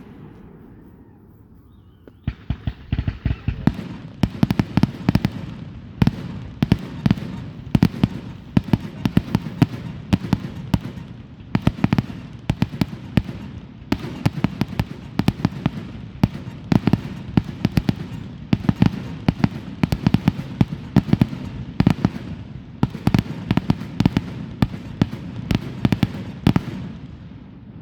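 Fireworks going off: after a quieter first two seconds, a dense, rapid run of sharp cracks and pops, many per second, over a low rumble.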